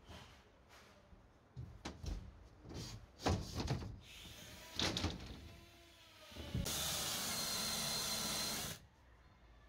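A plywood sheet knocking and clattering as it is laid down onto a steel bed frame. Then a cordless drill runs steadily for about two seconds, driving a screw into the plywood, and stops suddenly.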